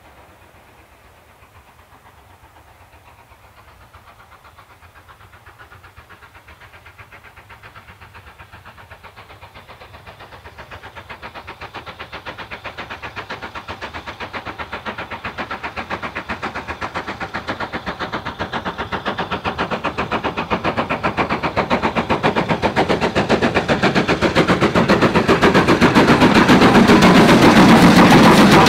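Two-cylinder BR Standard Class 5MT 4-6-0 steam locomotive 'Camelot' working a train up a 1 in 75 gradient: a rapid, even beat of exhaust chuffs that grows steadily louder as the engine approaches, loudest as it draws level near the end.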